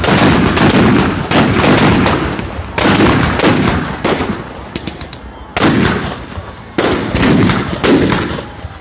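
Firecrackers packed inside a burning Ravan effigy going off in loud, rapid clusters of sharp bangs, with a brief lull about halfway through.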